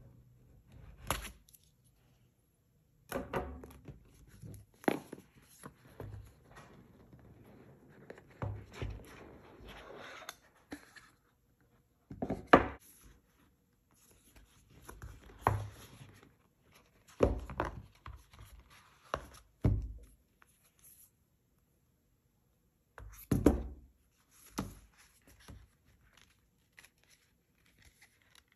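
Cardboard smartphone box and its packaging handled on a wooden table: the lid slid off and pieces set down, giving scattered knocks and taps, the loudest about halfway through. Sliding and rustling of cardboard and paper fill the stretches between, with a few brief quiet gaps.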